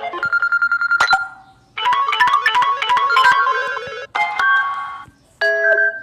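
Samsung Galaxy Tab A7 Lite notification tones played one after another. First a fast run of repeated short notes, then a plucked-sounding melodic jingle of about two seconds, then two shorter chimes, each cut off cleanly.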